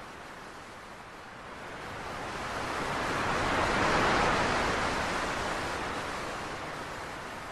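Ocean surf sound effect: a rushing wave that swells to a peak about four seconds in and then falls away, over a steady hiss.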